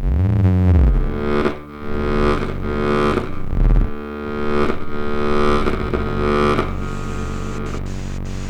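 Electroacoustic music: dense, distorted synthesized drones of many sustained pitches, entering suddenly with a loud low swelling tone and then pulsing in waves before settling into a steadier drone near the end.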